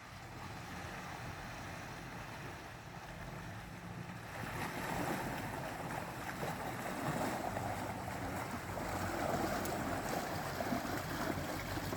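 Off-road vehicle on the move, heard as a steady rushing noise of wind and running that builds about four seconds in.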